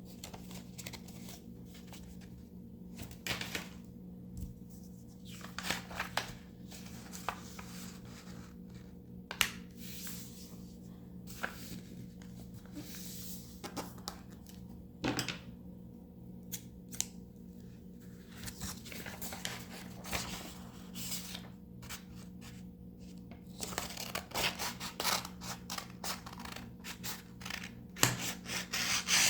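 Sheet of paper being handled, folded and creased: irregular crisp rustles, crackles and tearing or snipping sounds, busier near the end, over a steady low electrical hum.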